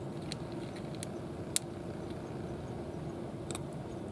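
A cat chewing dry kibble: a few short, sharp crunches, the strongest about one and a half seconds in, over a steady low hum.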